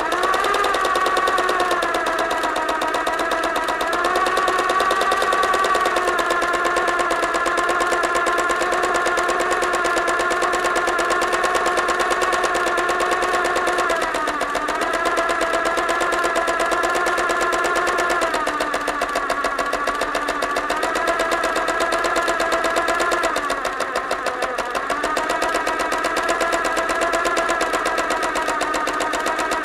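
Electric sewing machine running fast with a rapid, even rhythm. Its pitch sags and recovers a few times past the middle as the speed briefly eases.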